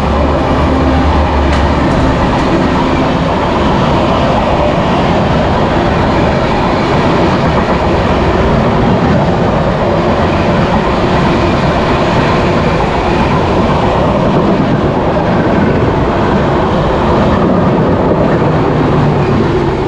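Passenger train, the 12276 Prayagraj Hamsafar Express, running past on the adjacent track: a loud, steady rush of coaches and wheels clattering over the rail joints. A low hum stops about two seconds in.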